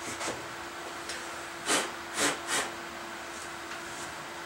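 Nuts and washers being worked by hand onto the core's mounting bolts: three brief scraping swishes in quick succession about a second and a half in, over a steady low hum.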